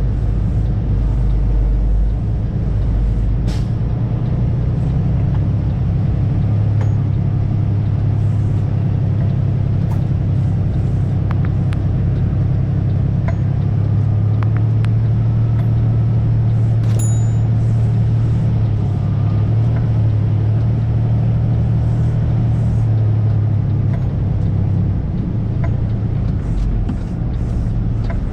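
Flatbed semi truck's diesel engine running steadily at low speed, heard from inside the cab, with scattered rattles and knocks from the cab shaking as the truck crawls over rough, muddy ground.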